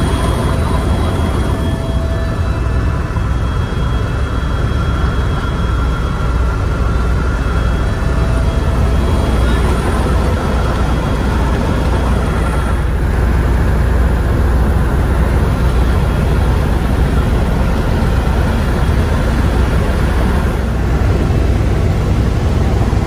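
Airbus EC130 helicopter in flight, heard from inside the cabin: a loud, steady rotor and turbine rumble, deepest at the bottom, with faint thin whine tones above that come and go.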